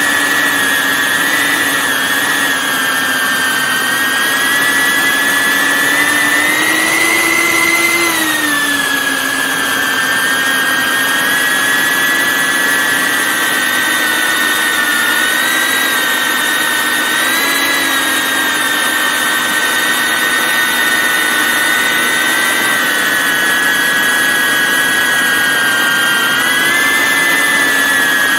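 Camera drone's motors and propellers whining steadily, heard close up from the drone itself. The pitch climbs from about six seconds in, drops back just after eight seconds, then wavers slightly as the throttle changes.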